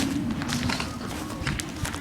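Running footsteps: irregular short knocks over a steady low rumble.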